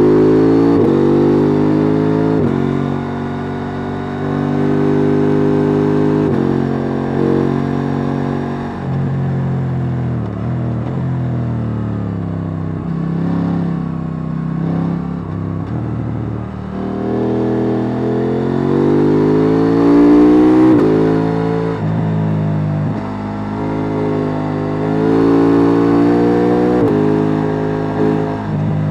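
KTM 890 Duke R's parallel-twin engine on its stock exhaust, heard on board while riding: it revs up through the gears with sudden drops in pitch at each upshift, falls away on a closed throttle in the middle, then pulls hard again through more shifts.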